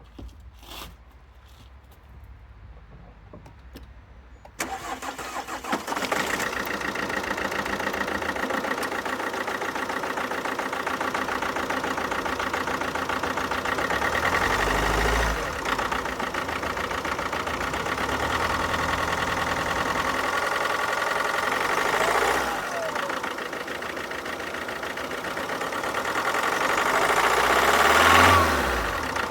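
Alfa Romeo Giulietta's 1.6 diesel engine starting about four and a half seconds in, then running with a few brief rises in revs, the highest near the end. The running sound comes from one cylinder having no compression, a fault the owner puts down to the valves, a piston or a leaking head gasket.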